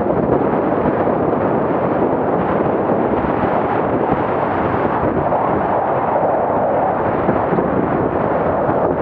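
Wind rushing over the microphone of a camera carried by a skier going downhill: a loud, steady rumbling rush.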